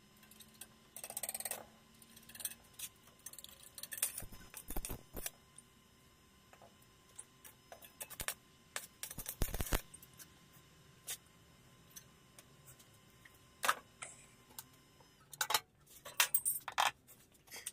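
Scattered light metallic clinks and taps of small steel pieces and tools being handled on a metal-topped workbench, with a few louder knocks.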